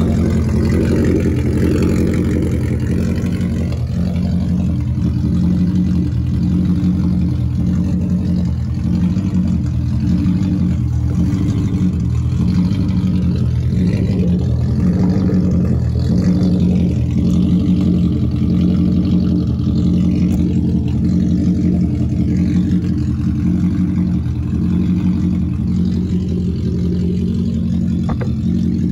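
Toyota 1UZ-FE V8 idling steadily through a home-made 3-inch straight-through exhaust, heard close to the tailpipe. The idle has a pulsing beat, which the owner puts down to the MAF and vacuum lines not yet being hooked up.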